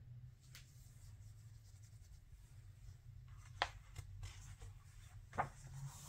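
A page of a hardcover picture book being turned by a gloved hand: faint paper rubbing and a few soft taps, the clearest about three and a half seconds in and again near the end, over a low steady hum.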